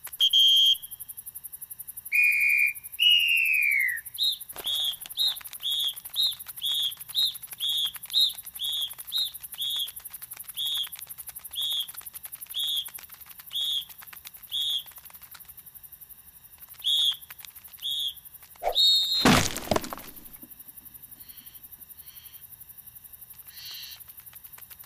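Cartoon ant voices: high whistling chirps, first a few longer whistles including one that falls in pitch, then a quick run of short peeps about two a second. About 19 seconds in there is a loud crash as a cardboard box of sugar cubes falls and spills onto a tiled floor.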